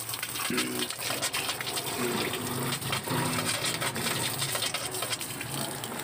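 A stream of water from a hose pours and splashes steadily into a washing-machine tub, onto the bare pulsator shaft and drain, flushing out caked-on sludge.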